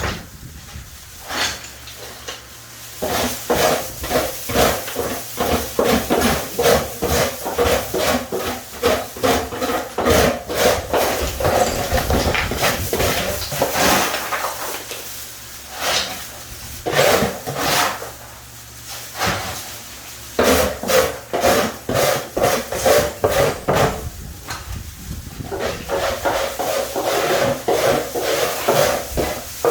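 Repeated scraping strokes, several a second, in runs of a few seconds broken by short pauses: a hand tool working on tile or mortar.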